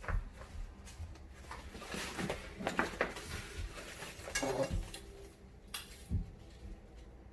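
Plastic parts of a no-tools fabric shoe rack clicking and knocking together as it is assembled by hand, in scattered short bursts.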